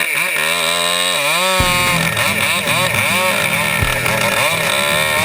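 Two-stroke chainsaw revving and easing off over and over, its pitch rising and falling as it cuts. About a second and a half in, a lower, rougher machine sound joins it, with a couple of short thumps.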